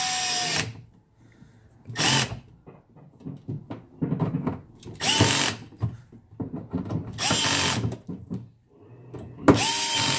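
Cordless screw gun driving machine screws into a cable clamp in short runs every two to three seconds, each run opening with a rising whine as the motor spins up, with small handling clicks in between. The screws are drawing the clamp down to compress a rubber gland around the transducer cable.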